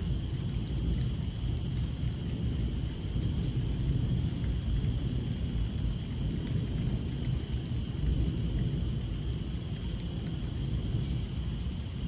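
Heavy rain falling steadily, a dense, unbroken noise that is heaviest in the low end.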